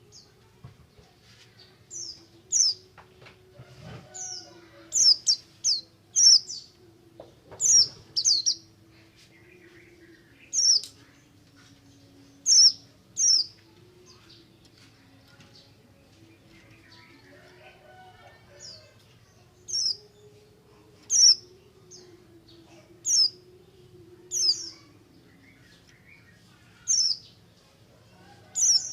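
Pleci (white-eye) in 'ngalas' mode: loud, sharp, very high chirps, often in quick pairs, repeated every second or two. A lure call meant to set other white-eyes singing.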